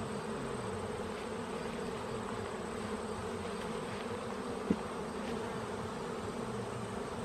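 Honeybee colony buzzing steadily around an open hive, a dense, even hum of many bees. A single short click comes about two-thirds of the way through.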